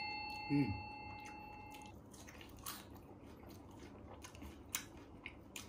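A bell-like chime fades out over the first two seconds, with a short hummed 'mm' about half a second in. After that come faint, scattered wet clicks of someone chewing crispy fried cheese mushrooms.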